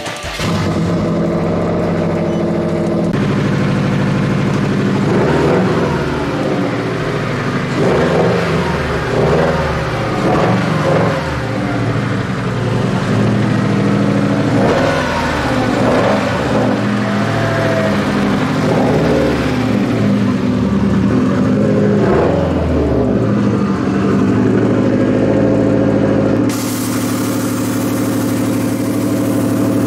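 Subaru WRX STI's turbocharged 2.5-litre flat-four running as the car is driven slowly out, its revs rising and falling several times in the middle.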